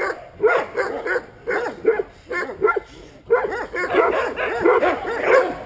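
Large guard dog on a leash barking repeatedly at an approaching person, about two barks a second, with a short pause about three seconds in before the barking picks up again, faster.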